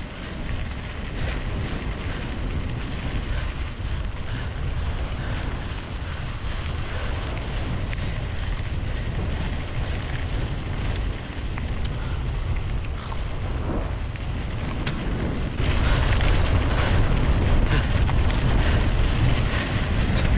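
Wind buffeting the microphone while moving, a heavy low rumble that gets louder about three-quarters of the way through.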